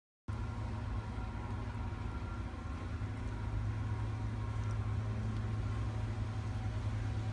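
A steady low hum with faint background noise, cutting in abruptly just after the start.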